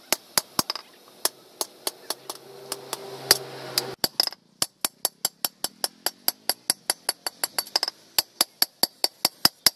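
Hand hammer striking a leaf-spring steel cleaver blade on a steel post anvil in quick, even blows, about three to four a second, each with a short metallic ring. The blows break off briefly about four seconds in, then resume slightly faster.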